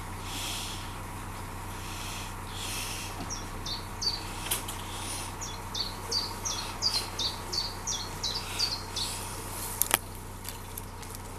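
Narrowboat engine running with a steady hum while a bird sings a run of short, falling chirps in the middle. Near the end, overhanging willow branches brush the cabin roof with a couple of sharp knocks.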